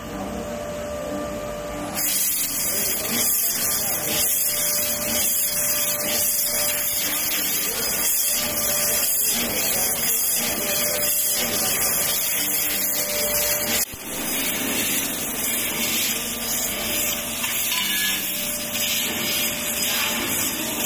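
Laser tube-cutting machine cutting a metal pipe: a loud, steady hiss of assist gas jetting from the cutting head starts about two seconds in. The hiss stops briefly about two-thirds of the way through, then resumes.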